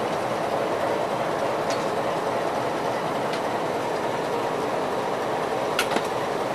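Steady running noise of a YDM4 metre-gauge diesel locomotive heard from inside its cab, with a few sharp clicks and a louder pair of clicks near the end.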